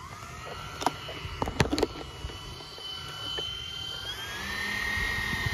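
Freewing 80mm A-10's twin electric ducted fans running with a steady whine at low throttle, then throttled up about four seconds in, the whine stepping up in pitch and getting louder. A few sharp clicks come about one and two seconds in.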